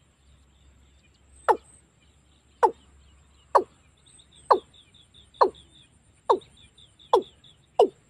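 Watercock calling: a series of deep, short notes, each falling in pitch. They come about once a second and gradually speed up, eight in all. Faint high chirps sound between some of the notes, over a thin steady high tone.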